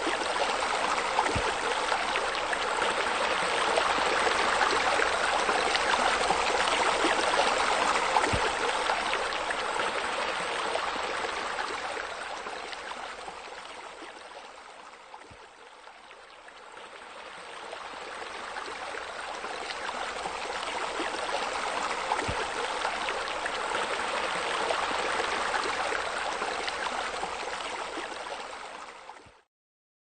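Steady rushing of running water. It fades down about halfway through, swells back, then stops just before the end.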